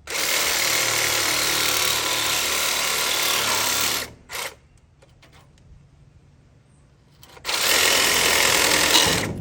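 Handheld power tool run hard in two long bursts, about four seconds and then about two, with a brief blip between them, while working on the poultry cruster.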